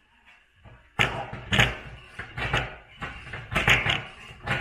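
Irregular sharp metallic clicks and knocks, about a dozen after a quiet first second. A hand tool is working temporary fasteners out of an aluminium gusset plate and its angle on a workbench.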